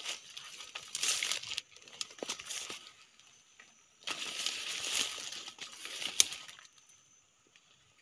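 Leaves and stems rustling and crackling as someone pushes through dense undergrowth, in three bursts with scattered sharp clicks, the loudest about six seconds in.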